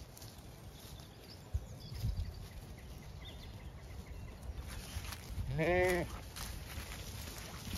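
A Zwartbles sheep bleats once, a short call that rises and falls in pitch about five and a half seconds in. Wind rumbles low on the microphone throughout.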